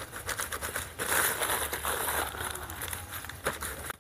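Paper rustling and crackling with scattered small clicks, a notebook's pages being handled. It grows louder for about two seconds beginning about a second in.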